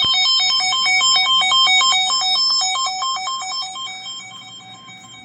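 Electronic alert tone from a broadcast emergency alert: a rapid run of beeps hopping between a low and a high pitch, starting abruptly and fading near the end.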